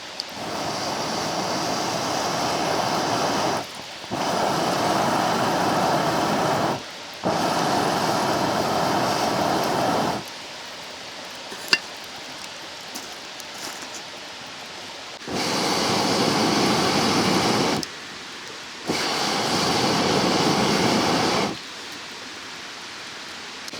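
Rushing water of a mountain stream, a steady hiss. It comes in stretches of about three seconds that start and stop abruptly, with a quieter, fainter stream sound between them and a single sharp click in the middle.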